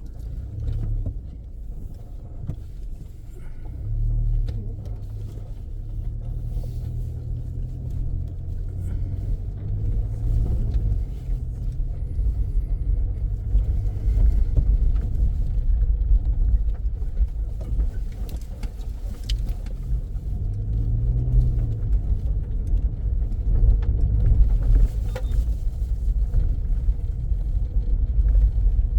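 A vehicle driving along a rough dirt road: a steady low engine and road rumble whose pitch shifts now and then, with scattered light knocks and rattles. It grows somewhat louder in the second half.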